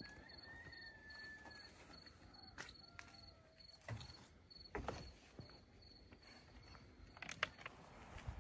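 Faint cricket chirping, a high pulse repeating about three times a second, with a few scattered soft knocks and thumps from bags being handled at an open car boot.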